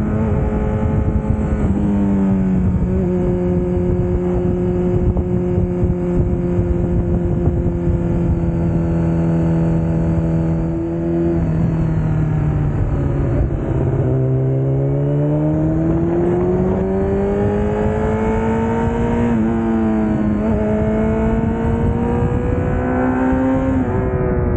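Honda CBR1000RR sportbike's inline-four engine running at a steady cruise under wind rush over the mount-camera mic. About halfway through the engine note drops as the bike slows, then climbs back up as the rider accelerates again.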